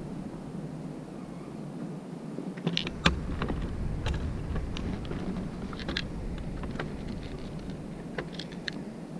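Small plastic clicks and light rattling from a plastic tackle box and tiny fishing-rig parts being handled. The sharpest click comes about three seconds in, and scattered ticks follow. A steady low background rumble sets in at about the same time.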